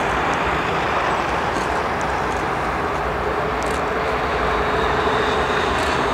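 Rolls-Royce Trent 500 jet engines of an Airbus A340-600 running as the airliner moves along the runway. The sound is a steady rushing noise with a held mid-pitched whine.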